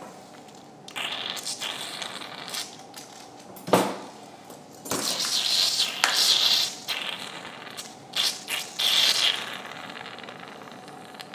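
Surgical suction tip drawing blood and fluid out of a dog's opened nasal cavity, hissing in irregular spells as it clears the bleeding during tissue removal. Two sharp clicks, likely from the metal instruments, stand out about four and six seconds in.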